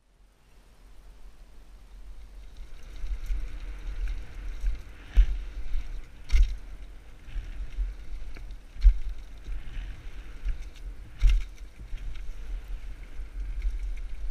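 Wind noise on a helmet-mounted camera's microphone and low rumble of a mountain bike rolling down a dirt trail, building up over the first few seconds as the bike gathers speed. Four sharp knocks cut through, as the bike hits bumps on the trail.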